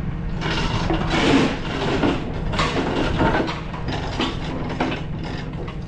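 Steel recovery chain clanking and rattling as it is handled and dropped into a skid steer bucket, in a string of irregular metallic clatters. Under it, a diesel engine idles steadily.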